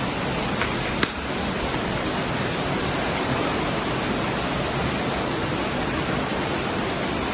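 Heavy rain falling in a steady hiss, with one sharp click about a second in.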